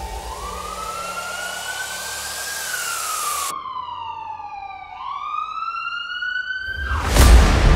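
A siren-like pitched tone in an edited soundtrack, sweeping up and down in slow glides, then rising sharply into a loud hit about seven seconds in, after which music starts.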